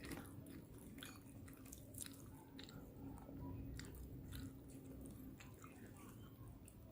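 Faint close-miked chewing of rice and egg-battered fried tempeh, irregular small crunches and wet mouth clicks.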